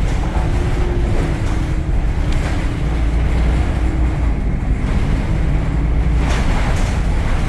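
Temsa Avenue LF city bus under way, heard on board: its DAF Euro 5 diesel and ZF gearbox give a steady low rumble, with a faint whine that wavers in pitch and a couple of short rattles near the end.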